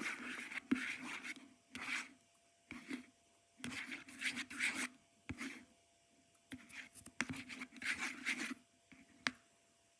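A mixing utensil stirring and scraping through glue and contact lens solution in a bowl as the slime begins to form, in uneven strokes with short pauses between them. A sharp click sounds near the end.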